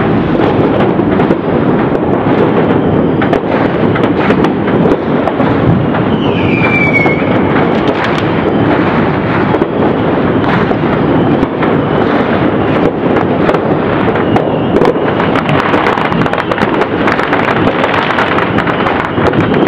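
A continuous barrage of many distant fireworks and firecrackers going off across the city, a dense crackle full of sharp pops with no break. A brief falling whistle comes about seven seconds in.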